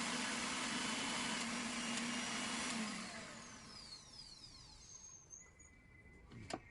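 Mixer grinder's universal motor running at full speed, then switched off about three seconds in, its whine falling as it coasts to a stop. A sharp click near the end.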